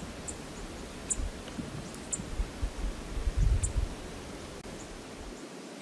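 Steady rush of river water, with low wind buffeting on the microphone in the middle and a few faint, short, high ticks.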